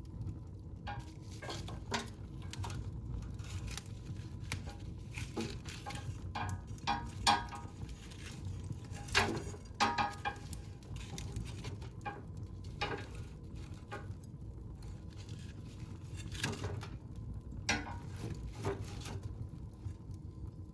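Wood fire in a fireplace crackling, with irregular sharp pops over a low steady rumble of the flames, a few louder pops about halfway through.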